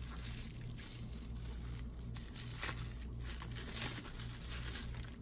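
Plastic packaging crinkling and rustling in the hands as a small package is unwrapped, in irregular bursts over a low steady hum.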